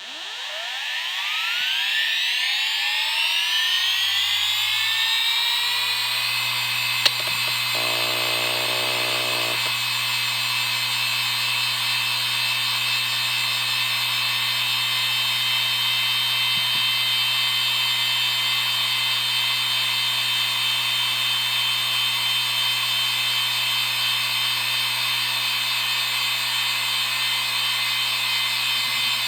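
IBM Deskstar 120GXP 7200 rpm hard drive spinning up: its whine rises in pitch over the first several seconds, then holds as a loud, steady multi-toned whine at full speed, the sound of bad spindle bearings. A single click comes about seven seconds in, followed by a brief rattling stretch.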